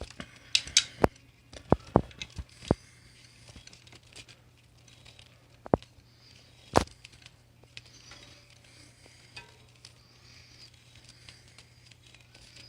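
Scattered sharp clicks and taps of hands handling small objects close to the microphone, a quick cluster in the first three seconds and two more around six and seven seconds in, over a faint steady low hum.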